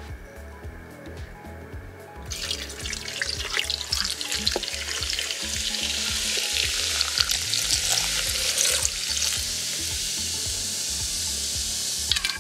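Carbonated ginger beer poured from a bottle into a plastic blender jar of frozen strawberries and passion fruit, a steady splashing fizz that starts about two seconds in and stops near the end.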